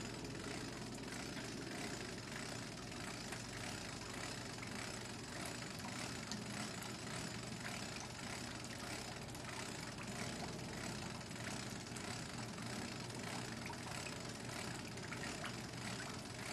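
Steady low mechanical hum under an even hiss, with a few faint ticks.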